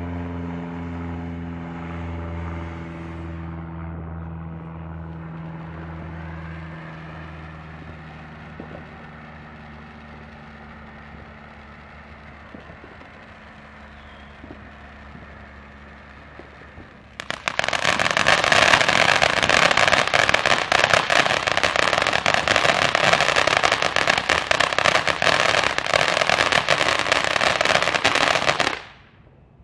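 A low, even-pitched hum fades slowly over the first half. Then a ground fountain firework starts spraying sparks with a loud, dense crackling hiss that runs for about eleven seconds and cuts off suddenly near the end.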